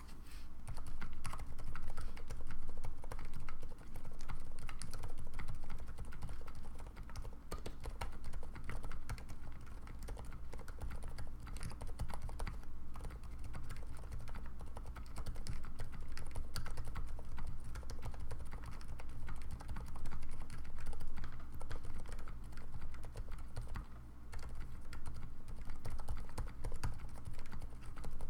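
Continuous typing on a TGR Jane mechanical keyboard with 78 g Cherry MX Silent switches in Zealios housings, lubed with Krytox 205/105: a dense, irregular run of dampened key presses and returns.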